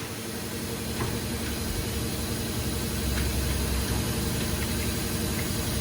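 A motor running steadily, with a low rumble and a couple of faint clicks.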